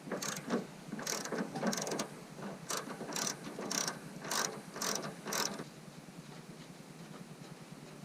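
Hand ratchet wrench clicking in quick back-and-forth strokes, about two a second, as it loosens a fender bolt; the strokes stop about five and a half seconds in.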